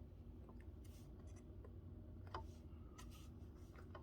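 Faint handling noise: light rubbing and a few small clicks as an adhesive Velcro strip is pressed into place by hand, over a low steady hum.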